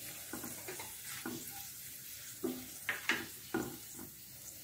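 Cumin seeds, bay leaves and dried red chilli sizzling in hot oil in a kadai: tempering whole spices (tadka). A silicone spatula stirs through them, scraping and knocking against the pan in a handful of short strokes, most of them between about two and a half and three and a half seconds in.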